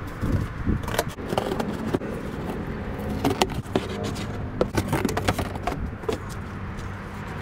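Kitchen scissors cutting through corrugated cardboard: a run of irregular crunching snips, with the cardboard sheet scraping and rustling as it is handled.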